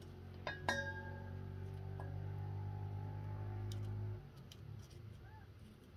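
A stainless steel bowl clinks and rings briefly about half a second in, over a steady low droning tone that cuts off abruptly about four seconds in.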